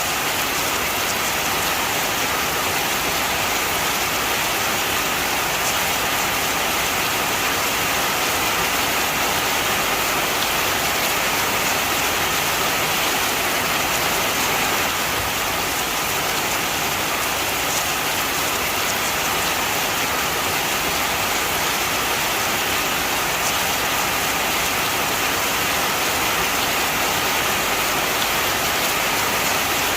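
Heavy rain falling steadily, a dense even hiss of drops with faint scattered patters on surfaces.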